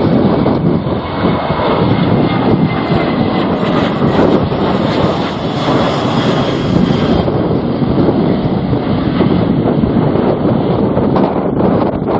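Aircraft engines as a plane passes close by, with strong wind buffeting the microphone; a faint high whine slides slightly lower in pitch through the middle.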